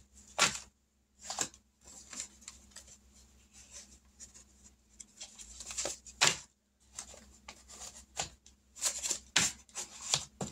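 Paper envelopes and bills being handled: separate short rustles and crinkles, with a quicker run of rustles near the end.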